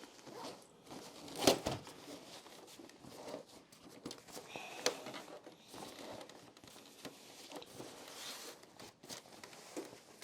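Handling noise: faint rustling with a few sharp knocks, the loudest about a second and a half in and another near five seconds.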